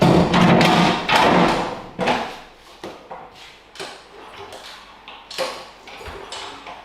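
Briggs & Stratton DOV lawnmower engine being cranked on its recoil pull starter, a couple of hard pulls against compression without the engine catching. This is followed by a few separate knocks and clicks.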